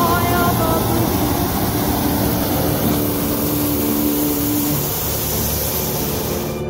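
Hot air balloon's propane burner firing in one long, steady blast, a loud rushing noise heard from right beneath it in the basket.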